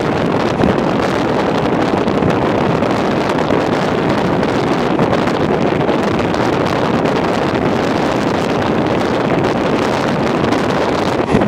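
Steady wind rush over the microphone at an open window of a moving train, mixed with the train's running noise. There is a brief knock near the end.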